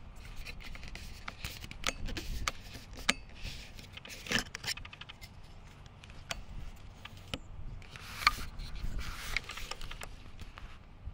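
Handling noise from a handheld camera carried across a grassy slope: irregular rustling, scraping and small clicks, the sharpest about four and eight seconds in, over a low rumble.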